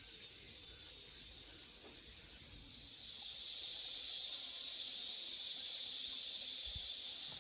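Cicadas calling in a steady, high-pitched drone that swells sharply about three seconds in and then holds loud.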